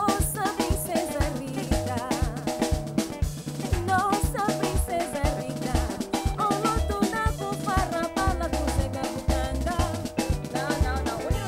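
A woman singing a melody with vibrato over a band with drum kit and bass, in a rearranged Angolan classic song.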